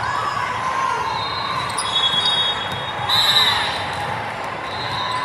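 Echoing gym hubbub at a volleyball match: crowd chatter and court noise, with a few short high squeaks about a second in and again past three seconds.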